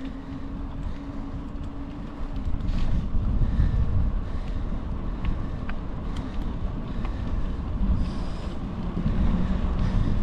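Wind buffeting the microphone while riding a bicycle: a steady low rumble that grows louder about two and a half seconds in.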